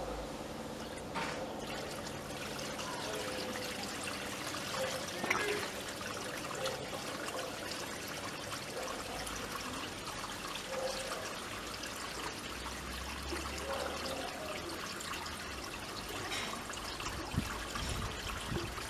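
Water trickling steadily from a hose into a homemade tarp-lined pool as it slowly begins to fill.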